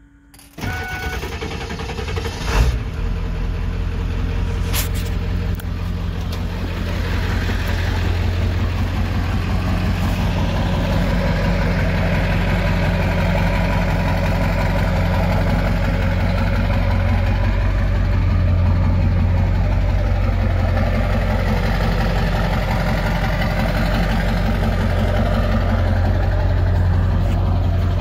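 Ford 7.3-litre Power Stroke turbo-diesel V8 starting for the first time through a freshly fitted 4-inch straight-pipe exhaust. It cranks under a second in, catches with a loud burst about two and a half seconds in, then settles into a steady, deep idle that grows a little louder from about eight seconds.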